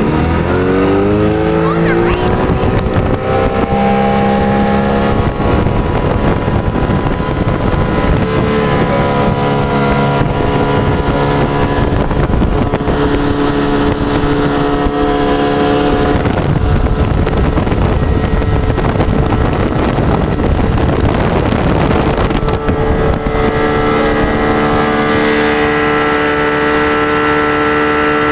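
Mercury outboard motor running under way, its pitch climbing over the first few seconds as it speeds up and then holding steady, with rushing water and wind on the microphone.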